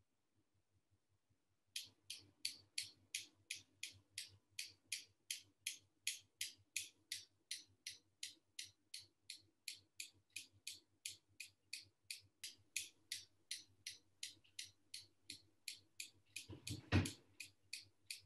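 A steady, even ticking beat, nearly three sharp ticks a second, which starts after a short silence and cuts off suddenly. A single louder thump comes about a second before the end.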